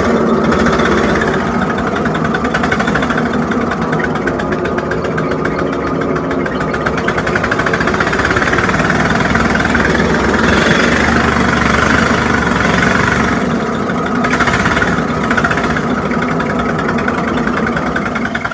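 Briggs & Stratton riding-mower engine converted to a uniflow steam engine, running steadily on high-pressure live steam with a fast, even beat.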